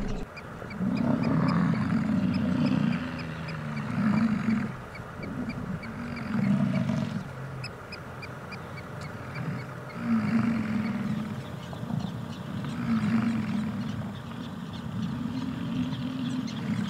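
American bison bulls bellowing in the rut: a run of deep, drawn-out roars, one after another, each lasting a second or two.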